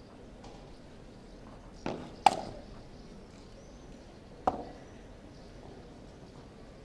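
Padel ball struck by rackets in play: two sharp pops about two seconds in, the second the loudest, and another about four and a half seconds in.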